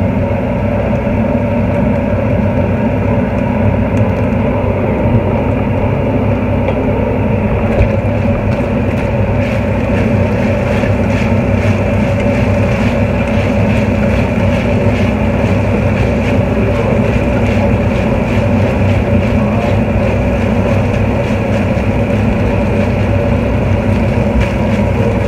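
Cubed beef frying in oil in a frying pan: a loud, steady frying noise. From about eight seconds in, crackles and the clicks of a spatula stirring the meat join it.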